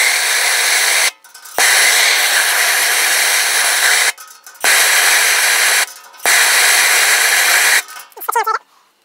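Handheld gas torch flame hissing steadily as it heats a cracked aluminium live well to brazing heat, about 735 degrees, for a fluxless brazing rod. The hiss cuts out suddenly and returns three times, then stops. A short squeak follows near the end.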